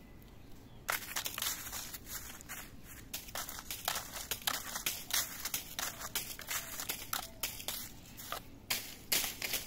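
Irregular crinkling and rustling, starting suddenly about a second in and going on in quick crackles, like something papery or plastic being handled or pawed.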